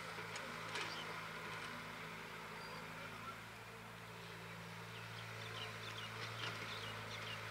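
Diesel engines of a CAT E70B excavator and a tractor running steadily, a low hum with a brief knock about a second in. Faint bird chirps come and go over it in the second half.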